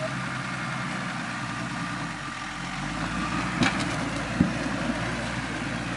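Toyota Land Cruiser's engine running steadily at low revs as it crawls up a rock step, with two sharp knocks about three and a half and four and a half seconds in.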